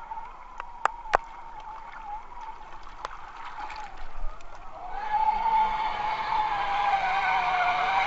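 Electric motor and gears of a scale RC UAZ 39094 off-road truck whining steadily, with a few sharp clicks in the first three seconds. About five seconds in the whine grows louder and fuller as the truck drives harder.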